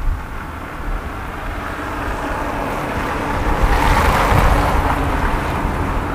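Wind buffeting the microphone outdoors: a steady low rumble with a rushing noise that swells about halfway through and then eases off.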